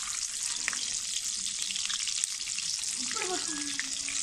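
Chopped green vegetables sizzling in hot oil in a wok: a steady high hiss with a few small pops. A short voice comes in near the end.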